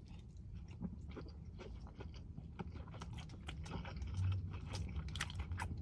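A person chewing a mouthful of butter chicken close to the microphone: irregular wet clicking and smacking mouth sounds, a little louder about four seconds in.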